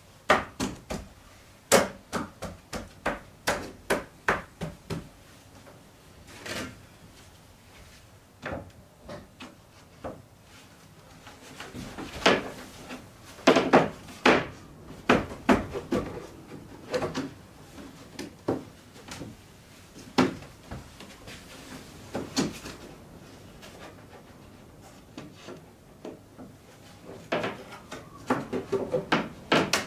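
Sharp knocks and taps on wood as wooden lining boards are handled and knocked into place. They come in runs, about two a second at first, with quieter stretches between.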